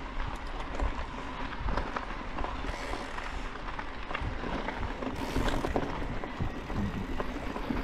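Orbea Wild FS electric mountain bike rolling down rocky, gravelly singletrack: tyres crunching over loose stones and the bike rattling with many small knocks, over wind rumble on the microphone. Two short bursts of hiss about three and five seconds in.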